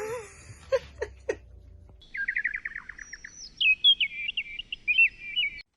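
A songbird singing: a quick run of about a dozen falling notes, then a higher, varied warbling phrase. It starts about two seconds in and cuts off abruptly near the end.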